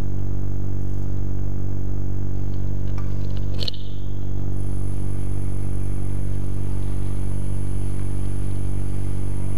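Benchtop wood lathe motor running slowly with a steady hum while a thin CA-glue finish is rubbed onto the spinning bottle stopper with a rag. A single sharp click comes about three and a half seconds in.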